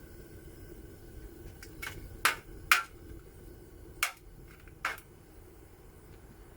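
Metal objects clanking together: about five sharp knocks with a short ring, two loud ones close together in the middle, over a steady low background noise.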